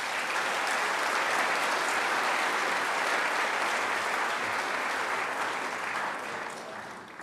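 Audience applauding, a steady clapping that thins out and fades over the last second or so.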